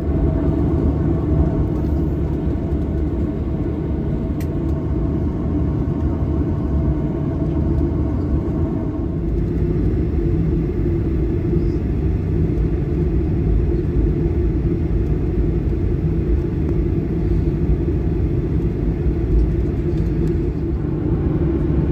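Cabin noise of a Boeing 737-900ER taxiing: a steady low rumble from its CFM56-7B engines and the rolling airframe, with a faint steady tone that fades out about nine seconds in.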